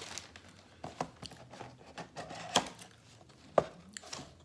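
Takeout food packaging being handled: a few scattered taps and knocks of cardboard and paper, the sharpest about three and a half seconds in.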